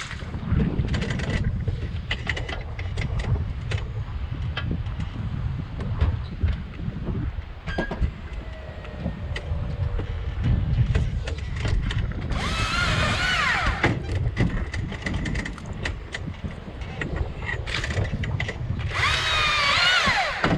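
Husqvarna electric chainsaw run in two short bursts, about twelve seconds in and again near the end, its whine dropping in pitch as it cuts into a branch. Wind rumbles on the microphone underneath, with scattered clicks and knocks.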